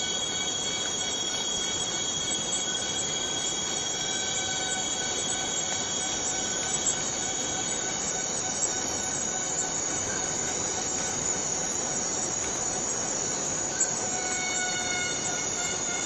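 Rainforest cicada chorus droning without a break: a dense shrill hiss with several steady whining tones layered over it. A couple of the middle tones fade out a few seconds in and come back near the end.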